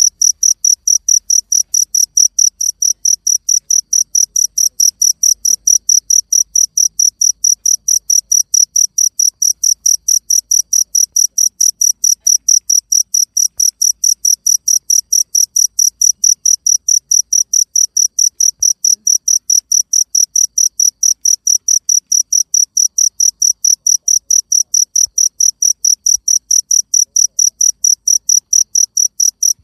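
A cricket chirping loudly and without a break: a high-pitched, evenly spaced pulse repeating about four times a second.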